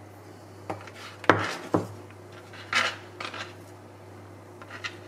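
Kitchen knife knocking and scraping against a bowl and a chopping board as chopped spring onion is pushed into the bowl. Several sharp knocks come in the first two seconds, the loudest about a second in, then a short scrape, and lighter taps near the end.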